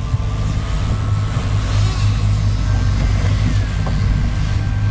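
Boat's outboard engines running steadily under way, a low drone with wind and water rushing past. A faint thin high whine comes and goes above it.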